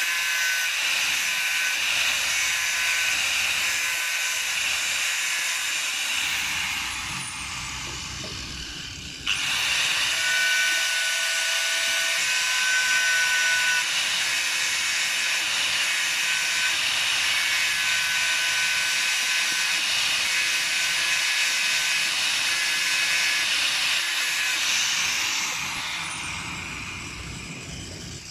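A high-speed electric power tool running with a steady hissing whine, winding down over a few seconds, switched back on abruptly about nine seconds in, then winding down again near the end.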